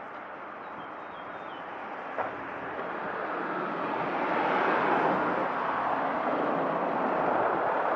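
Road traffic: a motor vehicle driving along an asphalt street, its engine and tyre noise growing louder from about three seconds in and then holding. A single short click sounds about two seconds in.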